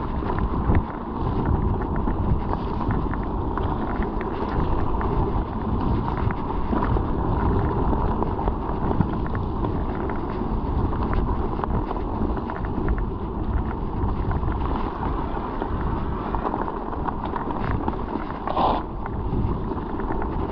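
Wind buffeting the microphone of a chest-mounted GoPro during a mountain bike ride, over tyre noise and many small knocks and rattles from the bike on rough ground. A brief sharper noise comes near the end.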